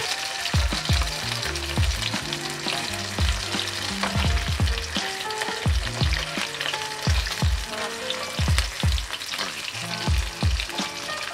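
Pork belly pieces sizzling in hot oil in a non-stick pan, with a silicone spatula scraping and turning them now and then. A background music track with a steady beat and bass line plays over the frying.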